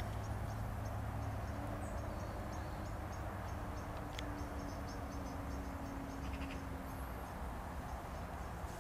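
Crickets chirping in short, evenly repeated high pulses over a steady hiss, with a low hum underneath.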